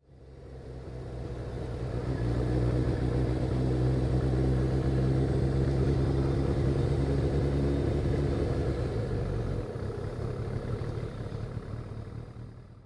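Motorcycle engine running steadily at low road speed, heard from the rider's own bike. It fades in over the first two seconds, its deep rumble eases about ten seconds in, and it fades out at the end.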